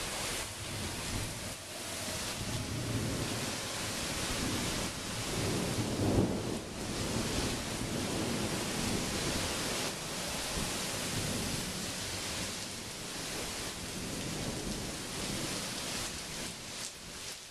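Heavy rain and strong wind of a thunderstorm, a steady loud hiss, with a low rumble of thunder swelling around five to seven seconds in.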